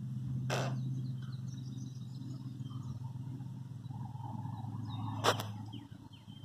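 A steady low hum that stops about six seconds in, with faint bird chirps and two short rushing noises, one near the start and one near the end.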